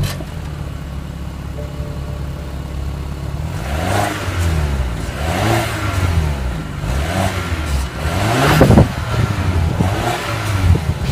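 BMW X1 sDrive28i's turbocharged 2.0-litre four-cylinder engine heard at its twin exhaust tips: idling steadily just after start-up, then revved in about five short throttle blips from about four seconds in, the fourth the highest and loudest.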